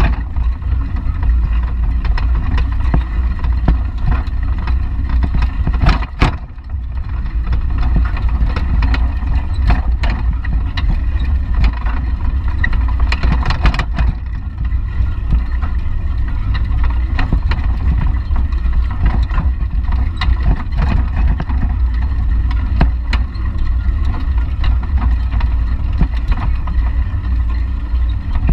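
Wind buffeting a GoPro's microphone on a moving bicycle, a steady low rumble, with scattered knocks and rattles from the bike and its metal basket rolling over the road. The sharpest knock comes about six seconds in.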